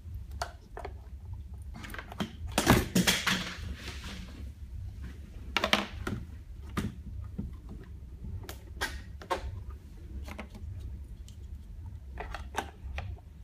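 Plastic clicks, knocks and handling noise of a syringe being fitted into a syringe pump's clamp and plunger holder, with a louder rustling burst about three seconds in, over a steady low hum.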